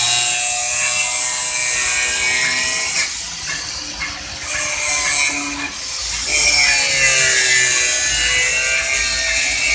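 Angle grinder cutting into a bus's front bumper panel: a loud high whine with a grinding rasp, its pitch and level dipping a few times as the disc bites in, then picking up again.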